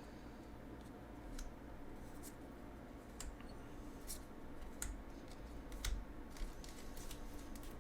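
Trading cards being handled and set down: faint, irregularly spaced light clicks and taps, roughly one or two a second.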